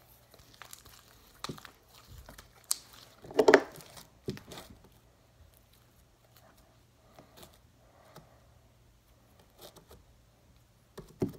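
Sticky homemade blue slime being kneaded and pulled apart by hand: intermittent wet smacks, tearing and crackling as it stretches and separates from the fingers, the loudest about three and a half seconds in, growing sparse in the second half.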